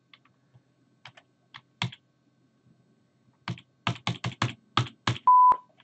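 Typing on a computer keyboard: a few scattered keystrokes, then a quick run of about ten. Near the end comes a short, steady high beep, the loudest sound.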